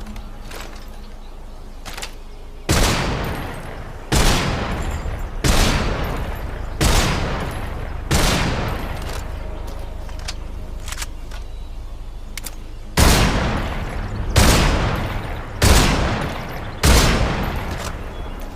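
Sz.-336 submachine gun firing nine short bursts, each with a sharp onset and a tail that fades over about a second. Five bursts come about a second and a half apart, then a pause of about five seconds, then four more.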